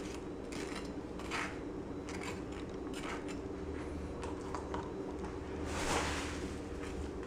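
A table knife scraping mayonnaise across slices of toasted bread and scooping more from the jar: a run of short soft scrapes, the loudest about six seconds in, over a steady low hum.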